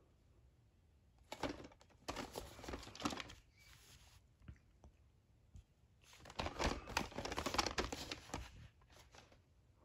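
A VHS tape in its cardboard slipcase being handled and turned over on a cloth-covered table: two spells of rustling and scraping with small clicks, one starting about a second in and a louder one about six seconds in.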